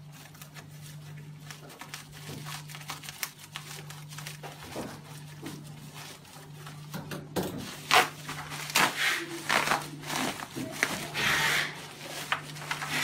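Plastic wrapping crinkling and rustling with scattered small clicks and knocks from handling computer accessories, busier and louder in the second half, over a steady low hum.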